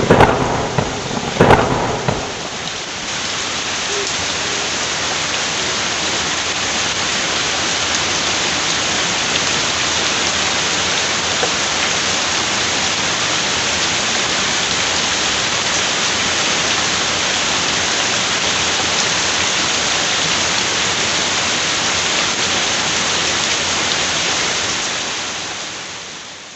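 Heavy rain pouring steadily, with two loud thunder cracks and rumbles in the first two seconds. The downpour then carries on evenly and fades out near the end.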